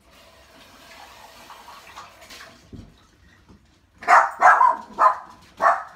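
Dog barking five times in quick succession, after a soft steady hiss.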